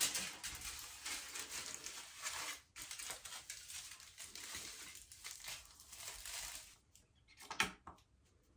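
Aluminium hair foil crinkling and rustling as it is folded and pressed flat against the head, stopping about seven seconds in, with one brief rustle near the end.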